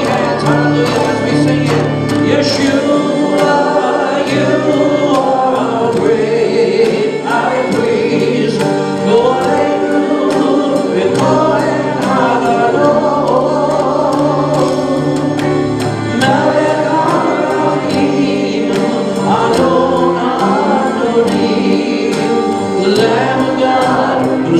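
Worship song: a choir singing held lines over band accompaniment with a steady beat.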